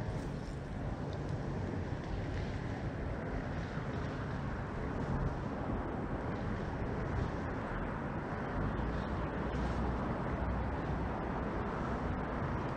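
Steady outdoor background noise: a low rumble with hiss over it, unchanging throughout, with no distinct events.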